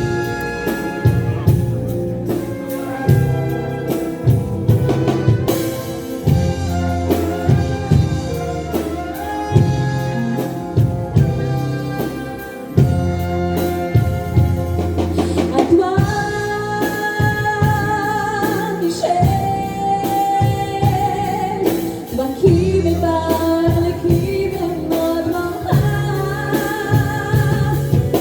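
A song sung live over a brass and variety band: a singer's melody over a steady bass and drum beat.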